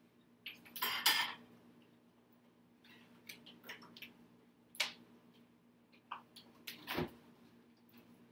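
Kitchen clatter: a cooking pan being handled and set on the stove, with scattered clanks and clicks, the loudest about a second in, and a dull thump near the end.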